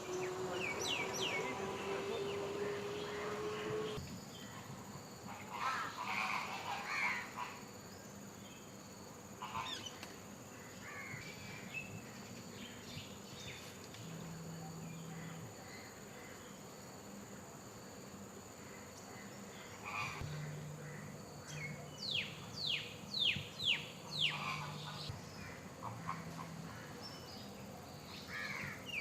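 Birds calling in scattered chirps, with a quick run of downward-sweeping chirps in the last third. During the first four seconds a steady tone rises slowly in pitch, then stops abruptly.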